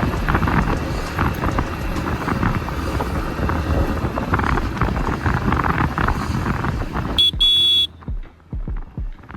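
Motor vehicle traffic with wind buffeting the microphone, then a short horn beep about seven seconds in, after which the noise drops away suddenly.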